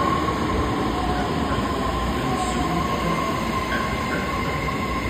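Kobe Municipal Subway train running into an underground station platform and slowing to a stop: a steady rumble of wheels on rail with a high whine, and a lower tone that slides down as it slows.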